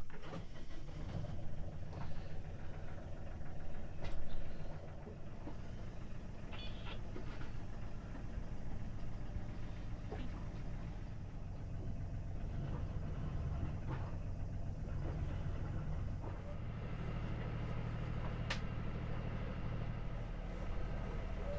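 A boat's engine running steadily with a low drone, which settles into a stronger, more even note about three-quarters of the way through; a few faint knocks over it.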